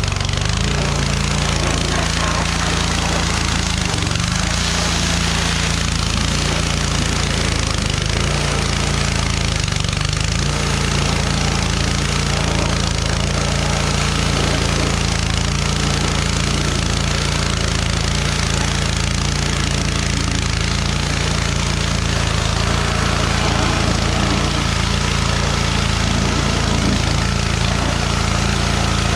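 Pressure washer running steadily, its motor droning under a hiss of water spray as the engine bay is washed.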